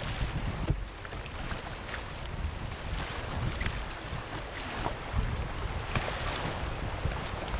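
Choppy whitewater rushing and slapping against a kayak's hull, with many short splashes, and wind buffeting the microphone in a low rumble.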